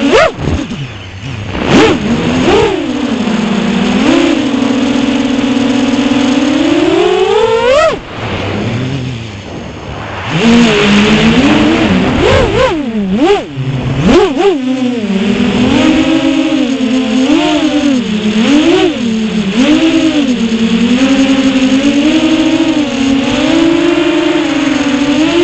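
A 6-inch FPV quadcopter's brushless motors (Eachine 2407 1850KV on 6S) and Ethix K2 props whining, the pitch rising and falling with throttle. The whine climbs steeply to a high pitch just before eight seconds in, drops to a low, quieter sound for about two seconds as the throttle comes off, then comes back with quick up-and-down swoops and a wavering whine for the rest.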